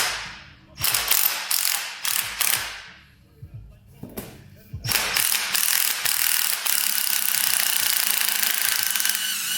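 Socket ratchet wrench turning a bolt: several short bursts of clicking, then after a pause a longer continuous run of fast clicking.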